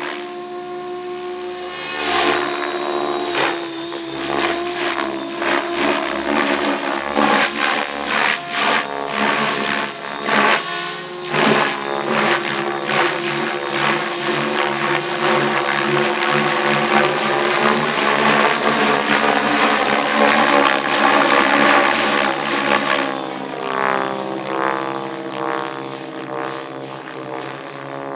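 Radio-controlled model helicopter running, its rotor blades thrashing the air over a steady high motor whine. The sound swells about two seconds in, is loudest through the middle, and eases off near the end.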